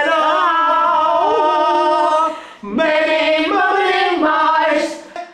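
Community choir singing a vocal warm-up a cappella: two phrases of held notes, with a brief break about two and a half seconds in.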